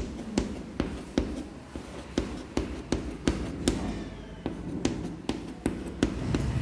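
Chalk on a blackboard: a steady run of sharp taps, about two or three a second, with light scratching between them, as fluorine symbols and electron dots are written.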